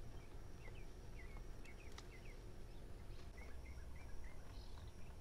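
Faint chirping of small birds, a few quick high chirps in two clusters, over a low steady rumble, with a couple of faint clicks about two seconds in.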